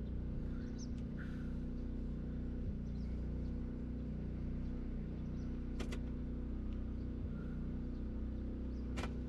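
Truck's engine idling with a steady low hum, run to recharge a low battery. Two short clicks come in the cab, about six and nine seconds in.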